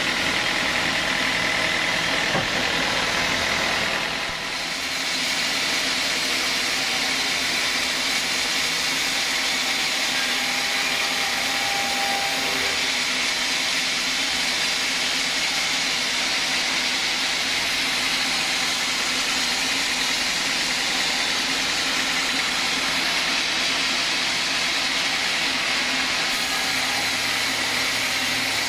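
Band sawmill running steadily, its vertical blade cutting lengthwise through a large log, with a brief dip in loudness about four seconds in.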